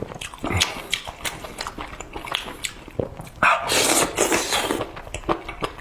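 Close-miked eating sounds: a string of wet clicks from chewing, with a loud slurp lasting under a second about three and a half seconds in.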